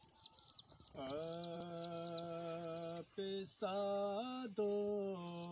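A wordless, hummed male vocal drone for a naat, holding long steady notes and stepping to new pitches about three seconds in and again about a second later. Quick high chirps run over the first two seconds.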